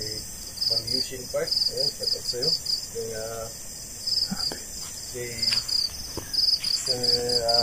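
Crickets chirping in rapid, evenly pulsed high trills that repeat over and over, with faint low voice-like murmurs and a few light clicks underneath.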